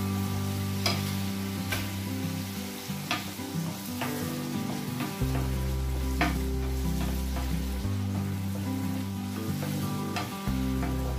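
Cherry tomatoes sizzling in a frying pan as a wooden spoon stirs them, with a few sharp knocks of the spoon against the pan. Low, steady background music notes run underneath.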